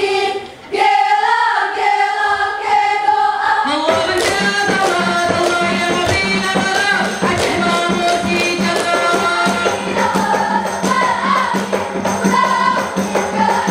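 Ratoh Jaroe dance music: a group of girls' voices singing a chant together, unaccompanied at first, briefly breaking off under a second in. About four seconds in, a fast percussion accompaniment with drums and tambourine-like jingles joins under the singing and carries on.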